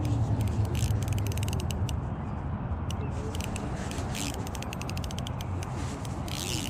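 Fishing reel being cranked, ticking rapidly, while a hooked trout is reeled in toward the bank, over a steady low rumble.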